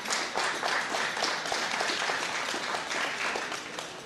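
Audience applauding, with the clapping thinning out near the end.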